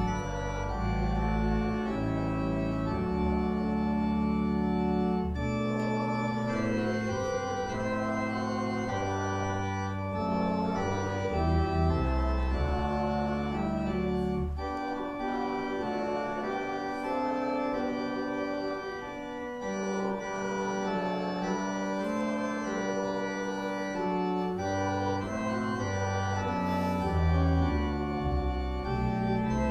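Church organ playing a hymn: full sustained chords that change every second or so over a deep pedal bass, which drops out for a few seconds in the middle.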